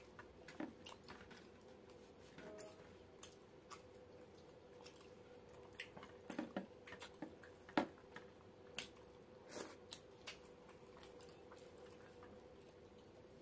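Eating by hand: chewing and mouth smacks, with fingers squishing roti and chicken in curry and scattered short clicks against steel plates, busiest and loudest around the middle. A faint steady hum runs underneath.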